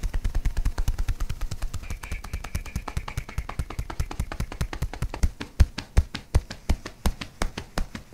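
Hands tapping quickly on a bare back as percussive massage: a fast, uneven run of soft slaps, several a second.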